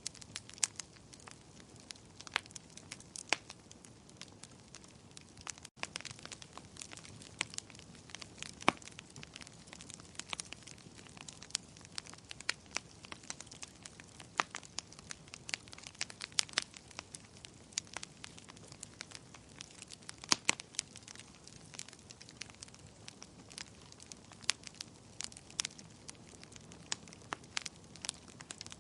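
Fire crackling: sharp, irregular pops and snaps over a soft, steady hiss.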